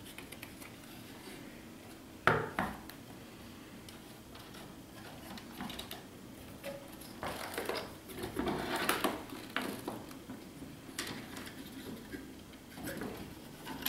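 A 3D-printed PLA large-format field camera being handled and unfolded: a sharp click of its parts a little over two seconds in, then scattered clicks, knocks and rustling as the standards and bellows are swung into place.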